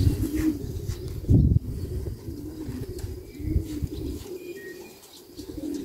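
Domestic racing pigeons cooing, low repeated calls, with a low thump about a second and a half in and a softer one about halfway through.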